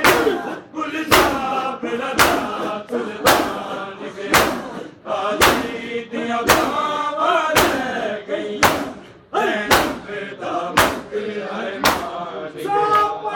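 Crowd of male mourners chanting a noha in unison, with loud, sharp chest-beating slaps (matam) struck together about once a second in a steady rhythm.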